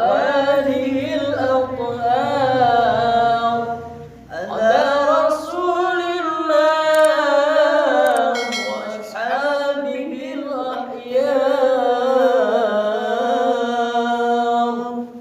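A male qori's unaccompanied voice chanting in long, ornamented melismatic phrases with wavering held notes. It takes short breaths between phrases, the first about four seconds in, and stops near the end.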